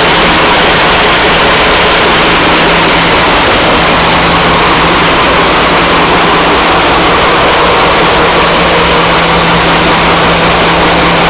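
The two Maybach MD655 V12 diesel engines of a Class 52 'Western' diesel-hydraulic locomotive ticking over while warming up, heard at close range inside the engine room: loud and steady, with a steady low hum under the engine noise.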